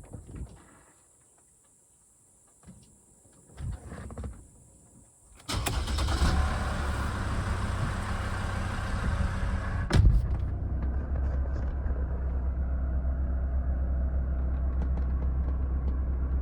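Mercedes-Benz W211 engine starting after its fuel filter change and running steadily, with a few faint knocks before it starts. A sharp knock comes about ten seconds in, after which the engine runs on with a lower, duller sound.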